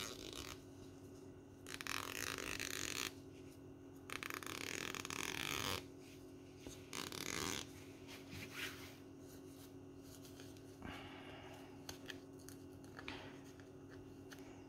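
Rustling of a printed cross-stitch canvas and its packaging being handled, in several short bursts, the longest about two seconds, over a faint steady hum.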